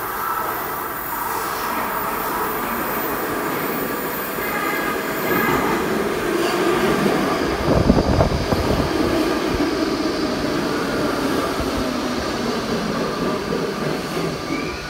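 Budd-built Baltimore Metro Subway train pulling into an underground station: steel wheels running on the rails with the steady whine of its DC chopper-controlled traction motors. The noise builds as the train approaches and peaks in a loud low rumble about halfway through as the leading cars pass, then eases.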